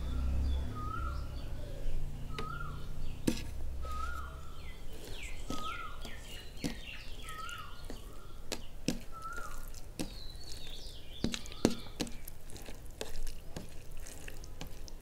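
Fingers mixing wet rice and moong dal on a plate: sticky squishing with many small wet clicks. A short chirp repeats about once a second in the background.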